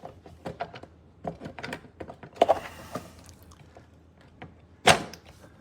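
Plastic clicking, knocking and scraping as a Fisher & Paykel dishwasher control module is worked loose and comes out of its housing, with one sharp, loud click near the end.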